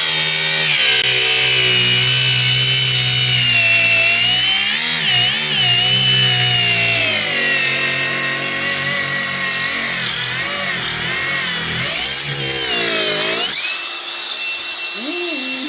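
Battery-powered angle grinder with a cutting wheel, cutting through a riding lawn mower's tire. The motor's pitch wavers and sags as the disc bites, then about two seconds before the end it climbs to a steady high whine as the load comes off.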